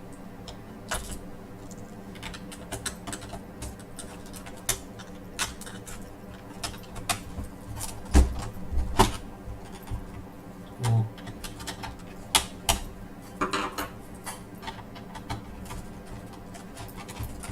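Irregular small clicks and taps of a screwdriver and small screws on a laptop's screen frame as the screws are fitted, with a few louder knocks in the middle, over a steady low hum.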